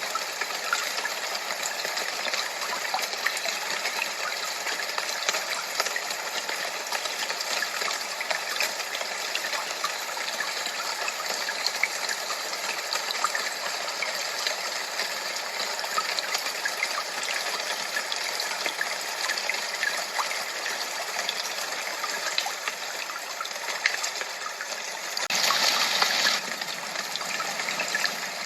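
Steady rushing noise like running water, a white-noise recording with fine splashy flecks and no deep rumble. It swells louder for about a second near the end.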